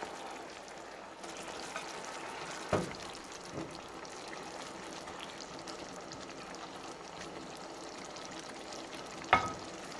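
Lemon pan sauce simmering in a skillet with a steady bubbling hiss as pieces of seared chicken are set into it with tongs. A few sharp clicks of the tongs on the pan, the loudest about three seconds in and near the end.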